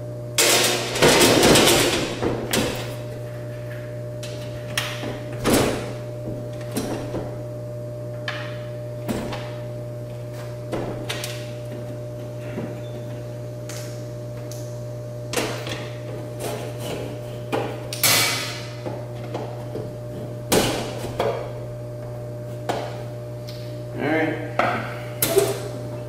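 Metal electrical service panel cover being fitted back on: scattered knocks and clanks, the heaviest cluster about a second in. A steady low hum runs throughout.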